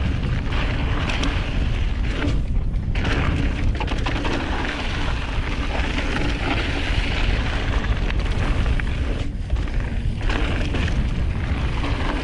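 Wind buffeting the action camera's microphone as a hardtail mountain bike descends a dirt trail at speed, mixed with tyre and frame rattle. It is a steady low rumble with two brief lulls, about two and a half and nine and a half seconds in.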